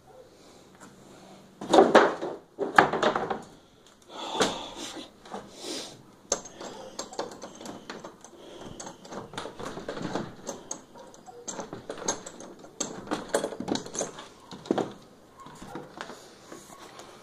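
Irregular knocks, creaks and clatter from someone moving about a gutted room with bare floor and wall framing. Two loud thumps come about two and three seconds in, followed by a run of lighter, scattered knocks.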